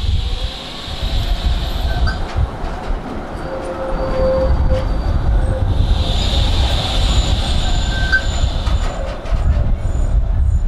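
Tram running on rails: a steady low rumble, with thin high-pitched wheel squeals that come and go and a scattering of clicks from the wheels on the track.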